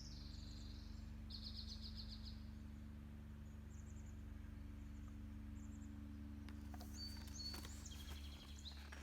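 Small birds chirping, with a rapid trill, over a steady low hum.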